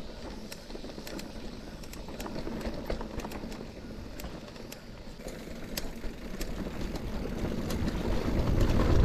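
Mountain bike rolling down a dirt trail: tyres crunching over dirt and loose stones, with scattered sharp clicks and rattles from the bike. A low rumble grows louder near the end.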